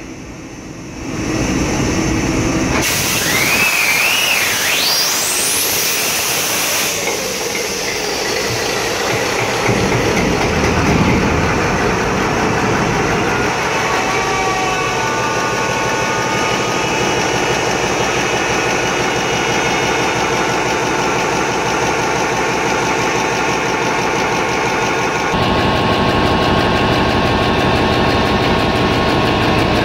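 Nine-cylinder marine diesel generator starting on its test run after a cylinder head replacement. A loud hiss and a rising whine come for a few seconds as it comes up to speed, then it runs steadily, sounding good.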